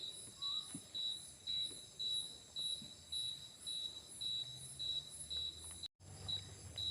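Crickets chirping in a steady rhythm of about two chirps a second, with a fainter high insect trill behind. The sound cuts out completely for a split second near the end.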